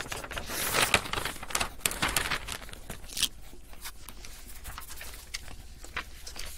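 Paper being handled, with pages rustling and irregular small clicks and taps. The rustling is busiest in the first second and again about two to three seconds in.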